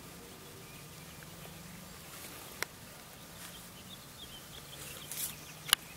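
Chickens preening: soft rustling of feathers worked through with the bill, with a sharp click about halfway through and a louder one near the end.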